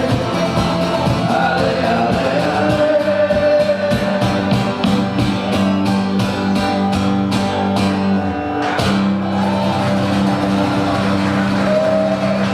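Rock music with singing and guitar over a steady drum beat.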